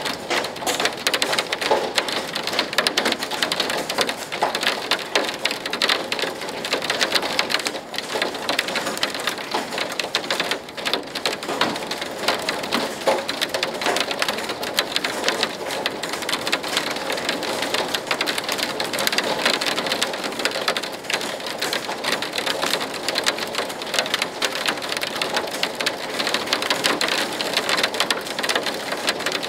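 Hailstorm: hail and heavy rain pelting a wooden deck and window glass, a dense, steady patter of countless small impacts.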